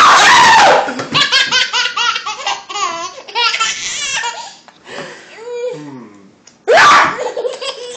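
A baby laughing in bursts of quick giggles, with a loud outburst of laughter at the start and another near the end.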